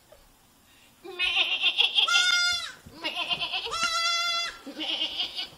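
A young goat kid bleating three times in a row, each call high-pitched and lasting about a second or more, after a brief quiet start.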